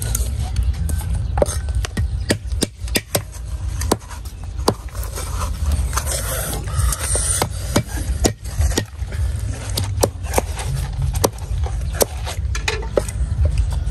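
A knife scraping and cutting the flesh out of a whole watermelon, then a cleaver chopping lemongrass on a wooden stump block. Sharp, irregular knocks of blade on wood come about once or twice a second, over a low rumble.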